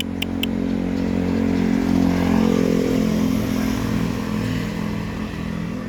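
A motor vehicle engine running past, growing louder to about two to three seconds in and then easing off as it moves away.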